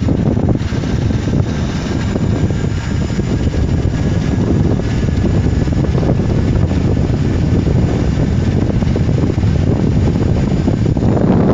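Loud wind buffeting on the microphone and tyre noise from an electric bicycle riding fast under throttle, with a faint steady whine from its 36 V 300 W electric motor running on 48 V.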